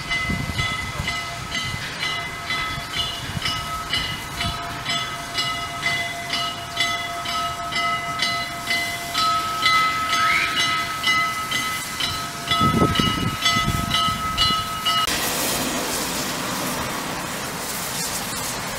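Steam locomotive approaching with a train, its exhaust and running gear rumbling, under a steady multi-pitched ringing tone that cuts off suddenly about fifteen seconds in. As the engine draws close near the end, a loud steady steam hiss takes over.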